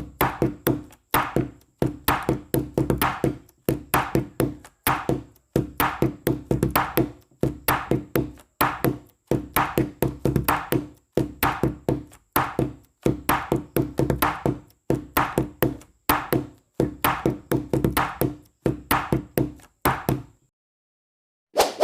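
Background music: a light percussive tune of short struck notes in quick rhythmic groups, which stops about twenty seconds in, followed by one brief burst of sound at the very end.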